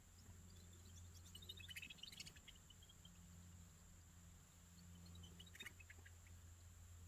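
Faint bird chirps over a quiet background: a quick, falling run of high chirps about a second in, and a shorter run about five and a half seconds in.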